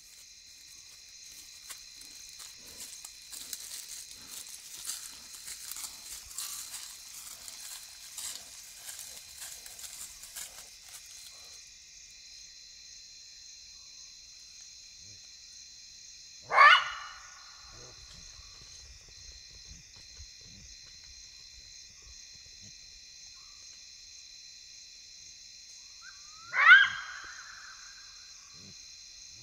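Side-striped jackal giving two short, loud barks, about ten seconds apart. A steady night insect chorus trills throughout, with a patch of faint crackling in the first ten seconds.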